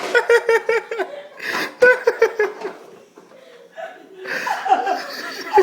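People laughing in fits of rapid, breathy giggles and snickers, in bouts with a quieter lull in the middle.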